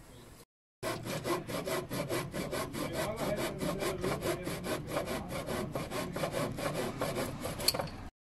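Hand saw cutting through a timber board in quick, even strokes, about five a second, with a sharp click near the end.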